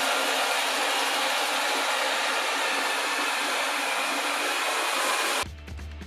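Dser RoboGeek 23T robot vacuum running in auto mode: a steady hiss of its suction, about 48 decibels on a sound meter. It cuts off suddenly near the end.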